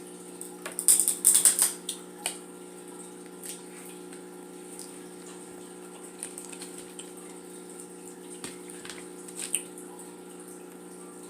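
Wet eating sounds from a seafood boil: a cluster of sharp crackles and smacks about a second in and a few single clicks later, from peeling shells and sucking the seafood, over a steady low hum.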